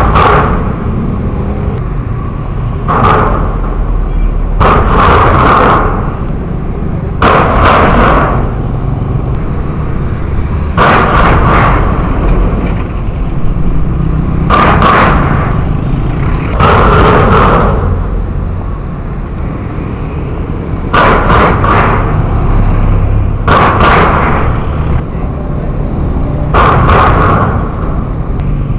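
Loose steel road plates over a poorly filled pipe trench banging loudly as vehicles drive over them, about a dozen bangs every two to four seconds, each ringing briefly, over steady traffic noise. The plates were laid and covered carelessly, so they are not bedded down and slam under the wheels.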